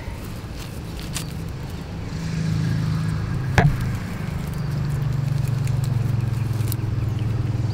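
A motor or engine running steadily with a low hum, growing louder about two seconds in, with one sharp click a little before the middle.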